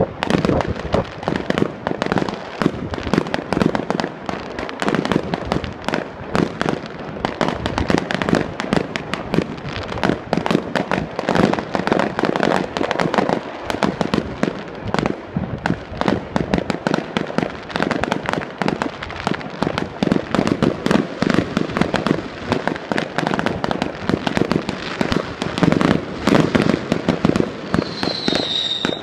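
Fireworks display going off in a dense, continuous barrage of bangs and crackles, with a brief falling whistle near the end.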